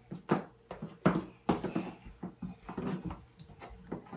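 Muffled handling noise of a recording device covered by clothing: irregular knocks, bumps and rustles, several a second.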